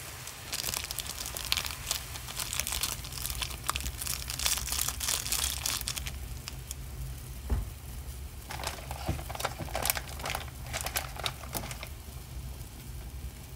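Plastic ramyeon seasoning sachets crinkling as they are squeezed and shaken empty, in two bouts, the second starting about halfway through. A steady low rumble from the pot at a rolling boil runs underneath.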